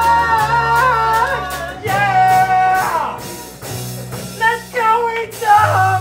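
Live band playing with a singer holding long notes over a held bass line, dipping in the middle and picking up again near the end.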